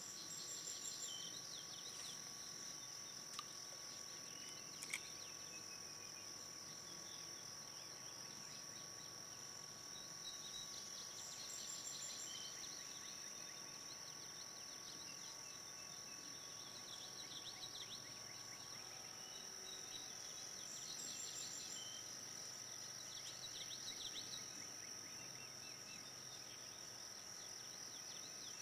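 Faint pond-side ambience: a steady high insect drone with scattered bird chirps coming and going. Two sharp clicks sound a few seconds in.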